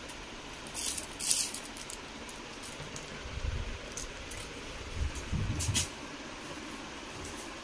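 A clear plastic bag being crinkled in short bursts, once about a second in and again later, over a steady background hiss, with a few low thuds in between.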